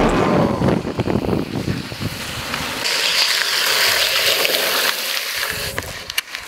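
Longboard rolling fast on asphalt with wind on the microphone. About three seconds in it turns into a steady hiss of the urethane wheels and a slide-glove puck scraping sideways across the asphalt in a hand-down braking slide, fading near the end.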